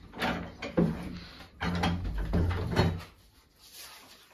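A series of knocks and thuds, a wooden door being opened and shut, about five in the first three seconds, then faint rustling of paper.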